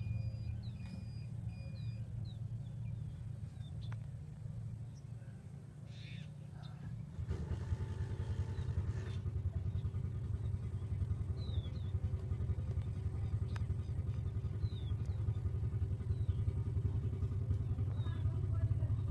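A low steady rumble, louder and more even from about seven seconds in, with a few short high chirps over it.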